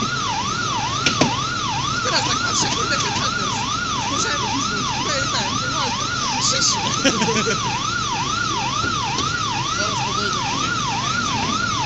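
Emergency-vehicle siren sounding a fast yelp, one wavering tone sweeping down and up about twice a second. A few sharp knocks cut through it.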